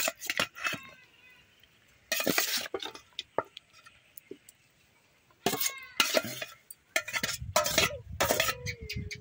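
A spoon clinking and scraping against a cooking pot as chicken pieces and potatoes are spooned in as a biryani layer, in several short bursts with quiet pauses between.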